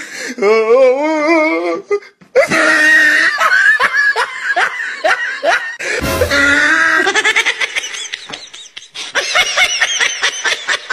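Laughter mixed with music, opening with a wavering pitched sound; a low bass comes in about six seconds in.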